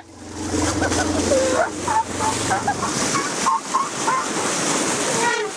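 Elephant growling with a low, steady rumble, with short high chirping calls scattered over it. The elephant is agitated after hearing a human imitation of an elephant call.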